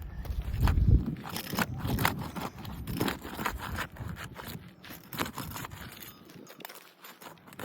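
Roof shingles being pried apart with a roof snake: a run of crackling and scraping clicks as the tightly sealed shingles tear loose from one another. The clicks are busiest in the first few seconds and thin out near the end.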